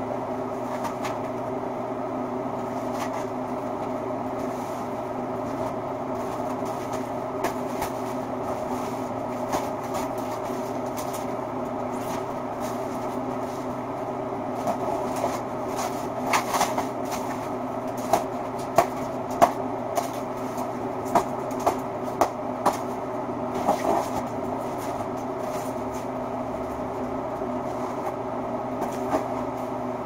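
Unpacking a wire stripping machine from its cardboard box: scattered clicks, rustles and knocks of cardboard, packing and parts being handled, busiest in the middle. Under it a steady electric hum.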